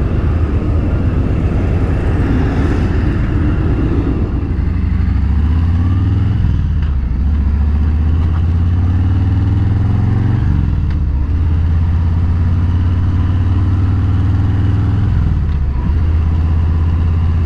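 Motorcycle engine running steadily on the ride, its low note dipping and picking up again three times, at about six and a half, ten and a half and fifteen and a half seconds in.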